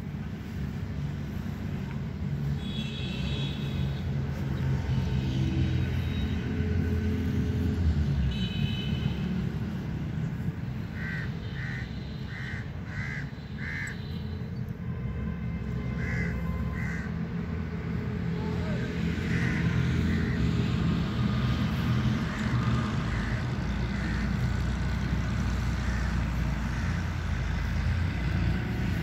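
A steady low engine drone runs throughout. Over it a bird calls repeatedly, most clearly in a run of five short, evenly spaced calls about halfway through, followed by two more a few seconds later.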